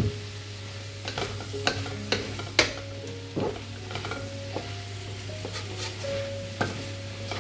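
Pancit bihon rice noodles being stir-fried in a pan, sizzling, with a cooking utensil scraping and knocking against the pan in irregular strokes about once a second.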